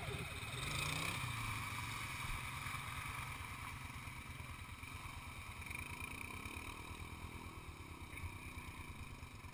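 ATV engine idling with a steady low putter, while another four-wheeler's engine is heard faintly, rising and falling in pitch as it drives through the mud pit.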